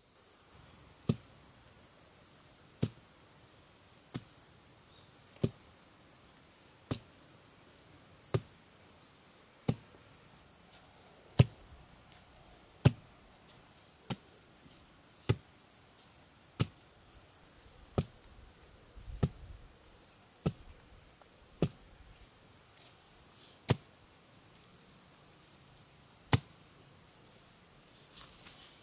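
A hand tool striking wood over and over, about one blow every second and a half, such as a knife or axe chopping. Insects trill steadily in the background.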